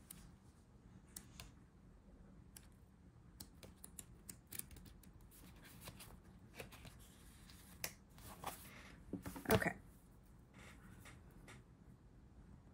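Paper sticker sheets rustling and being flipped, with a sticker peeled from its backing and scattered small clicks and taps. The loudest sound is a brief rustle about nine and a half seconds in.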